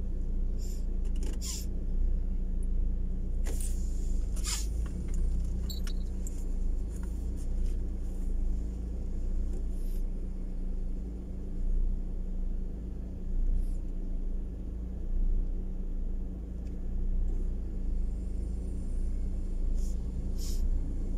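Steady low rumble of a car idling in stopped traffic, heard from inside the cabin, with a constant hum and a few scattered sharp ticks.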